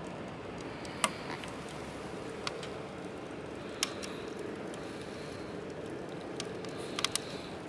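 Wood crackling as it burns in the firebox of a Winnerwell Nomad View stainless-steel tent stove: scattered sharp pops, the loudest about a second in and a quick pair near the end, over a steady hiss.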